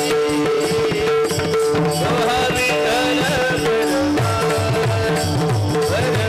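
Marathi kirtan devotional music: sustained held tones over a steady rhythm of tabla-style drum strokes, with a gliding melodic voice line on top.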